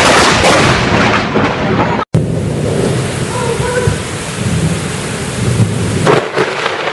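Thunder rumbling loudly just after a close lightning strike, breaking off suddenly about two seconds in. Then heavy rain falling steadily, with low thunder rumbling under it and growing louder again near the end.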